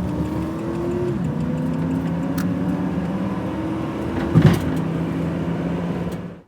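Road vehicle driving: the engine drone rises in pitch as it accelerates, drops about a second in as it shifts gear, then rises again. A short thump comes about four and a half seconds in.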